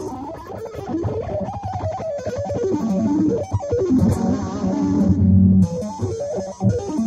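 Electric guitar played fast shred-style: rapid single-note runs winding up and down, with a held low note about five seconds in.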